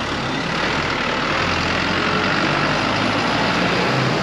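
City street traffic: vehicle engines running and passing, growing a little louder toward the end.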